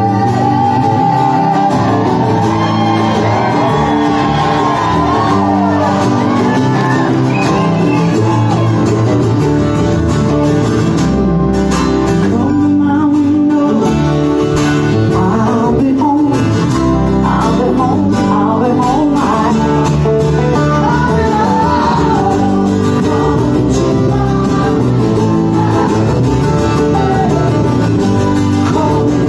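Live acoustic band playing a rock song: a strummed 12-string acoustic guitar, a second guitar and a plucked upright bass, with a strong lead voice singing over them.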